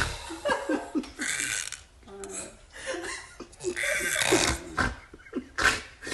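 A man snoring in a run of short, irregular snorts and rattling breaths.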